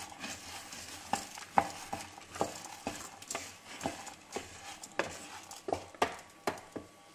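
Wooden spoon stirring diced pumpkin and rice in a stainless steel saucepan, scraping and knocking against the pan about twice a second, over a light sizzle of the hot oil as the rice toasts.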